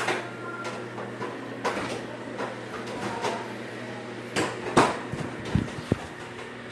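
A few scattered sharp knocks and clicks over a steady low hum.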